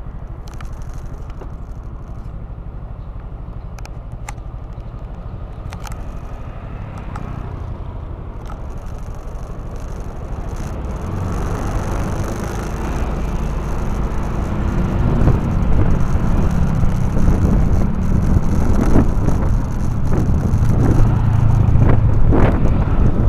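Motorcycle engine running steadily with road and wind noise, heard from the bike itself; the engine and wind get louder about halfway through as the pace picks up, and a passing vehicle adds to the noise.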